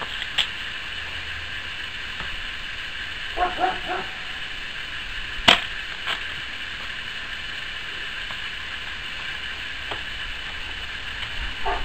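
A single sharp shot from a .177 break-barrel air rifle (an old Slavia 618) about five and a half seconds in, followed a moment later by a faint tick. A smaller click comes near the start, over a steady high drone in the background.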